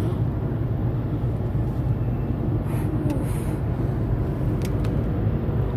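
Steady low road rumble inside a moving car's cabin, tyres and engine running evenly, with a few faint ticks near the middle.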